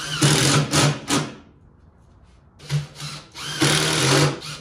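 Cordless drill driving 1 5/8 inch screws into birch plywood. The motor whines in several short bursts as each screw is run in, with a pause of about a second and a half in the middle.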